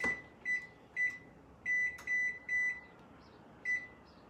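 Electric range's oven touch control panel beeping as its buttons are pressed to set the oven preheating to 350 degrees: seven short, high beeps of the same pitch at uneven intervals.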